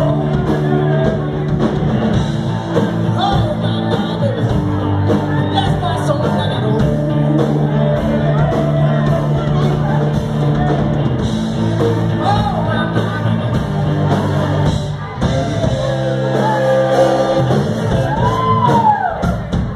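Rock band playing live: electric guitars, bass guitar and drum kit, with singing.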